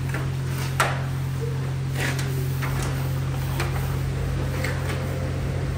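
A car-wash foam brush scrubbing the soapy painted steel hood and fender of a 1960 Ford panel truck, in short strokes about once a second, with a sharp knock about a second in. Under it runs the steady low hum of the wash bay's equipment.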